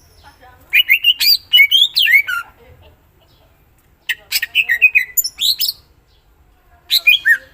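Cucak ijo (green leafbird) singing in three bursts of rapid chirps and sweeping whistles, a loud, lively song laced with phrases imitated from other birds.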